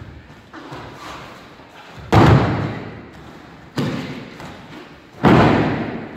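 Aikido breakfalls: a thrown body hits foam mats with a heavy slapping thud three times, about two seconds in, a lighter one near the middle, and again about five seconds in, each trailing off in the hall's echo.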